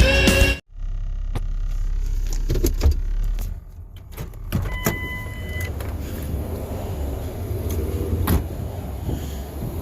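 Car sounds: a low rumble, scattered clicks and knocks, and a short electronic chime of about one second near the middle.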